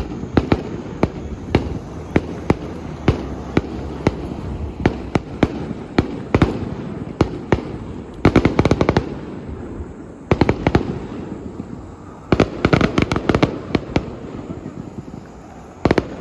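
Fireworks display: a string of sharp bangs from bursting shells, broken by several runs of rapid crackling, the densest about eight seconds in and again around twelve to fourteen seconds.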